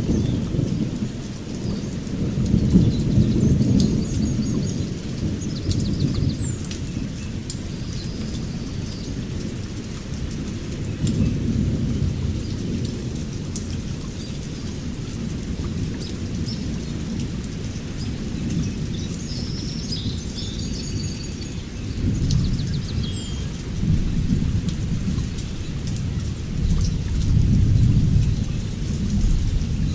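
Deep low rumble that swells and fades every few seconds, with birds chirping and scattered faint clicks over it.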